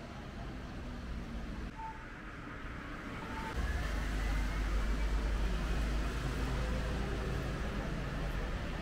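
Street traffic: cars passing on a wet road. A low rumble grows markedly heavier about three and a half seconds in, with a faint rising whine as a vehicle goes by.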